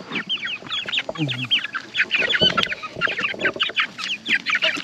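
A flock of young chickens giving a constant stream of short, high peeps, several overlapping each second, as the birds scatter from someone trying to catch one.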